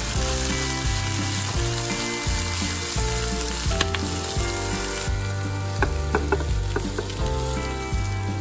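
Scallions, tofu puffs, carrot and wood ear fungus sizzling in hot oil as they are stir-fried with a spatula, over background music. The sizzling drops away about five seconds in, followed by a few light clicks.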